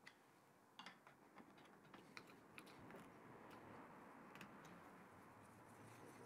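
Near silence with faint, scattered small clicks of metal parts and a screwdriver being handled on an antique Lorch Model A lathe's cross slide while it is checked for alignment before tightening.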